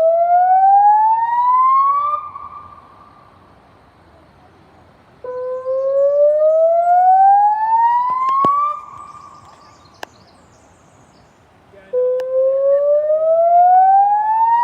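Warning siren sounding its test signal: a slow rising whoop, each climbing in pitch for about three seconds and then cutting off, repeated about every seven seconds. One whoop is already sounding at the start, a second comes in about five seconds in, and a third near the end.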